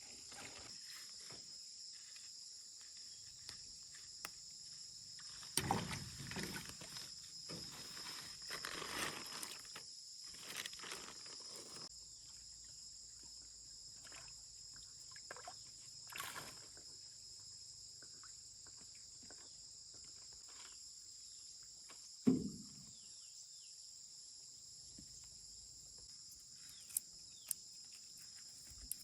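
Steady high-pitched chorus of insects, with scattered rustles and knocks. The loudest is a sharp thump about twenty-two seconds in.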